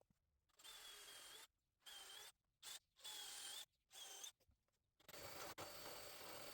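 Handheld power drill running with a motor whine in about five short bursts, then a longer steady run starting about five seconds in.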